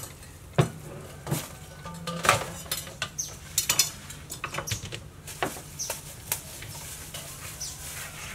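Irregular clatter and knocks of a metal basin, plastic baskets and bagged food being handled and set down, with a few sharper knocks in the first half.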